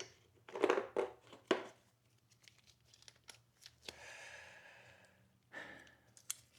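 Hand work on a motorcycle chain's clip-style master link: a few scraping, rustling noises early, a softer hiss in the middle and a sharp click near the end.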